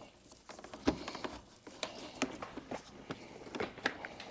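Faint scattered clicks and rustling as gloved hands push a wire behind a motorcycle's plastic side panel and handle the wiring, with a sharper click about a second in.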